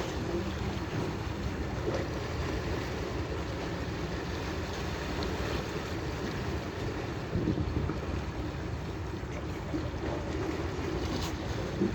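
Steady wind buffeting the microphone over the wash of sea water, with a low rumble underneath and a couple of faint knocks.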